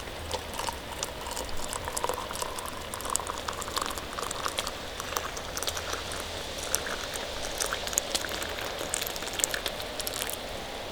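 Food bubbling and sizzling as it cooks over a campfire, a dense run of small pops and crackles over a steady hiss; it cuts off sharply near the end.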